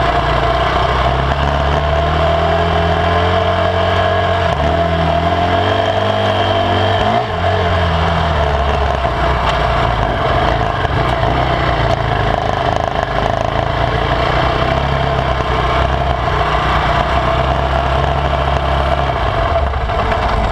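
KTM MXC450 dirt bike's single-cylinder four-stroke engine running under way on a trail, its pitch rising and falling as the throttle is worked, most noticeably a few seconds in.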